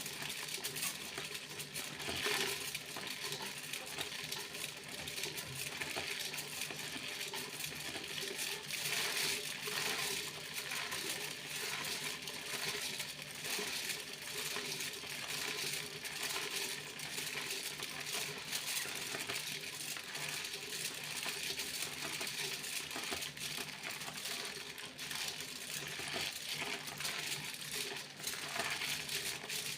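Foil being crinkled and jingled without a break, a dense crackle of many tiny metallic clicks.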